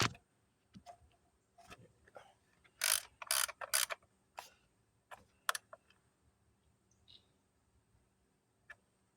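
3/8-inch ratchet with a T27 Torx bit clicking in short spurts as a coil pack hold-down bolt is snugged down, a few clicks at a time with pauses between.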